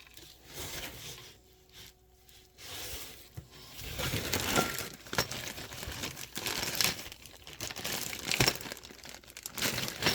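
Packaging being handled and unwrapped, with irregular crinkling and rustling that starts about four seconds in and goes on in quick uneven bursts.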